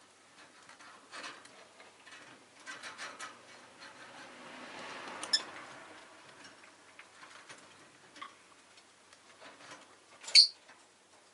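Rosy-faced lovebird in its cage: scattered small clicks and taps, a brief chirp about five seconds in, and one loud, sharp chirp near the end. A soft swell of street noise rises and fades in the middle.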